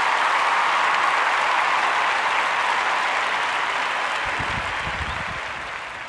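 A crowd applauding steadily, fading away over the last couple of seconds, with a few dull low bumps near the end.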